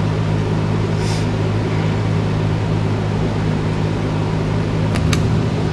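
Steady low mechanical hum of machinery running in the shop, with a deeper tone joining in near the end and a couple of faint clicks.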